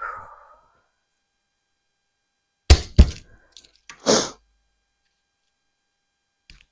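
Garlic cloves being worked on a cutting board: a light knock at the start, two sharp thunks a third of a second apart about three seconds in, then a short rasping burst.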